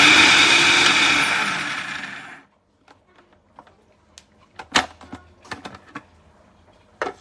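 Electric food processor motor running with a loud whirring, fading over its last second and stopping about two and a half seconds in. Scattered clicks and knocks follow, like the bowl and lid being handled.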